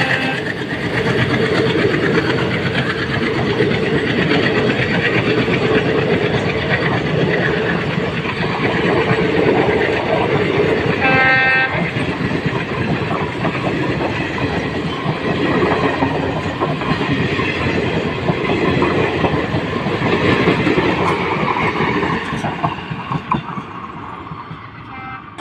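Passenger train coaches rolling past close by in a steady, loud rush of wheels on rails, with a short horn blast about halfway through. The noise fades over the last few seconds as the last coach moves away.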